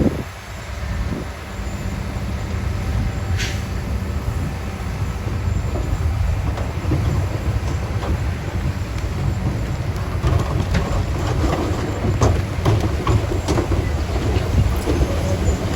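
Heavy earthmoving machinery's diesel engine running with a steady low rumble. From about two-thirds of the way through, irregular clattering and crunching joins in.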